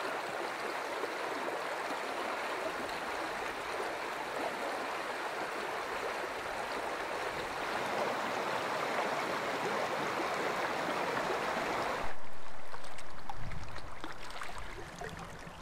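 River water rushing steadily. About twelve seconds in it switches abruptly to a louder, duller rush that gradually fades.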